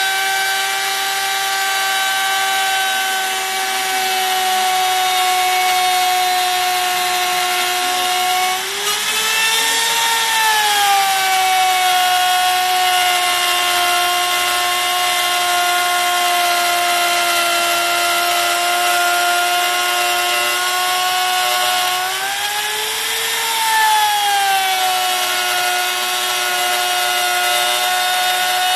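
Makita compact trim router running at a steady high whine while its small bit trims the edge of a particleboard panel along a guide. Twice its pitch rises briefly and settles back, about a third of the way in and again near the end.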